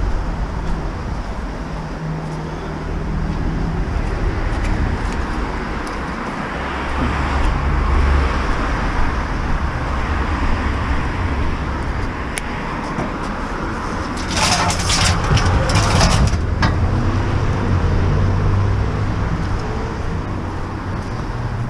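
Road traffic going by on a busy street: a steady rumble that swells as vehicles pass. About two-thirds of the way through comes a short burst of clattering.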